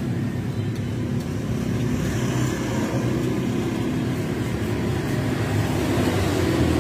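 Steady low motor hum.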